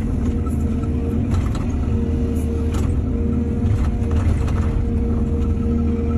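Excavator's diesel engine running steadily with a held hydraulic tone, and a few brief knocks and clatters scattered through.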